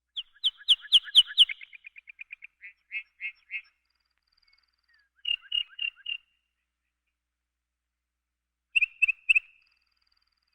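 A bird calling in three bouts of short, sharp, repeated notes. The first bout runs a few seconds, fast at first and then slowing. A group of four notes comes about halfway through, and three quick notes come near the end.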